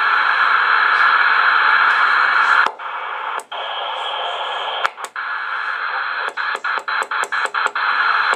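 Static hiss from a Cobra 140 GTL CB radio's speaker as its channel selector is turned. The hiss drops to a lower level about a third of the way in. It cuts out for an instant at each channel step, and near the end the steps come in quick succession, about four a second.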